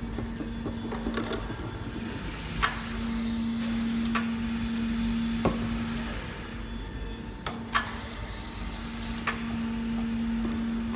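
Semi-automatic round-bottle labelling machine: its motor hums steadily while the rollers turn a bottle to wrap a label on, twice for about three seconds each. Sharp clicks and knocks come in between as bottles are handled and set in place.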